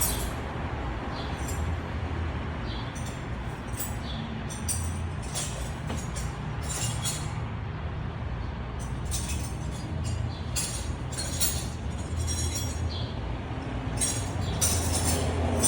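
Hand tools clicking and clinking against metal in an engine bay, in short irregular bursts over a steady low rumble.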